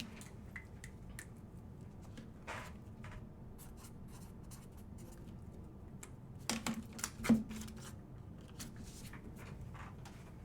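Scattered light knocks, clicks and rustles of small objects being handled, with a louder cluster of knocks about six and a half to seven and a half seconds in.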